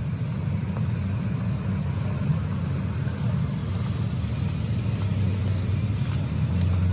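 City street traffic: a steady low rumble of cars driving past, growing a little louder near the end.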